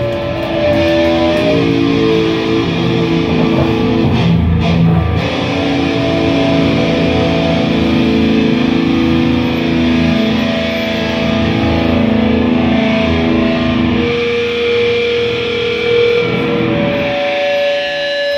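Live band playing loud, guitar-heavy rock music, with sustained chords. About fourteen seconds in, the low end drops away, leaving mostly held guitar notes.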